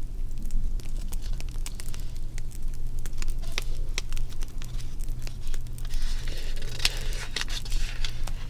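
Crackling fire: irregular sharp pops and snaps over a steady low hum.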